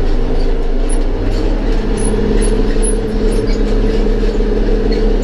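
Belarus MTZ-2022.3 tractor's diesel engine running steadily, heard from inside the cab as the tractor drives across the field.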